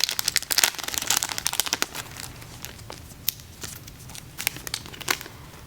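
Wrapping around a set of photocards crinkling and crackling as it is handled and opened, dense for the first two seconds, then sparser crackles and a few sharp ticks.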